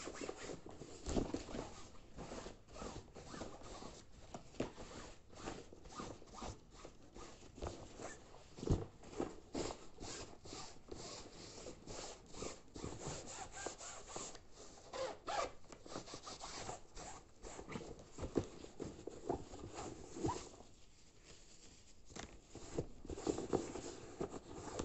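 Fabric backpack being handled and wiped out with a tissue: irregular rustling, rubbing and zip clicks, easing off for a moment near the end.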